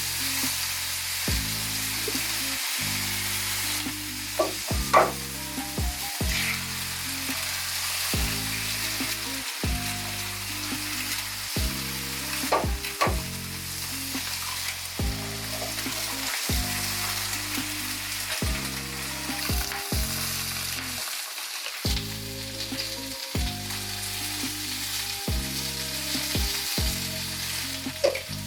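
Food frying in a pan, a steady sizzle, with a few sharp clicks of a utensil about five and thirteen seconds in. A low background music track with a steady beat runs underneath.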